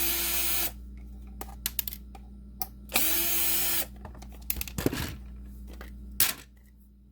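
Small electric screwdriver whirring in two short runs of under a second each, with a pitch that rises as it starts, backing out the screws of a plastic game cartridge shell; scattered clicks and knocks of the plastic being handled in between.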